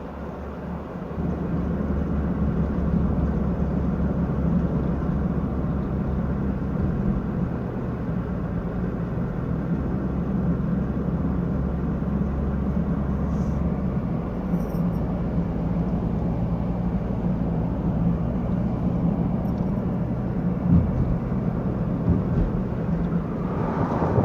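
A vehicle's engine running steadily with a low drone, its tone shifting about halfway through.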